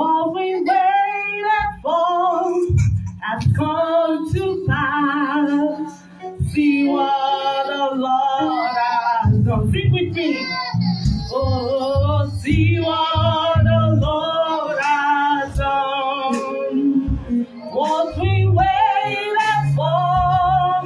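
A woman singing a worship song into a microphone. Her long held notes waver with vibrato.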